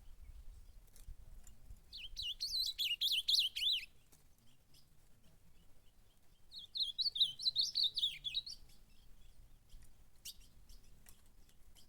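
Ultramarine grosbeak (azulão) singing: two short warbled phrases of about two seconds each, a few seconds apart.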